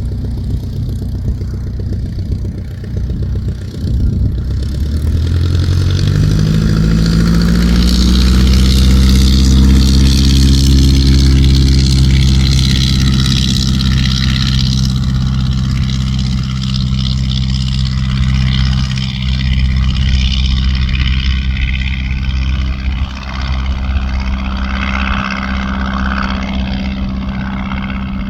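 de Havilland Tiger Moth's inverted four-cylinder engine and propeller running, speeding up from about four to eight seconds in, then holding steady at higher revs.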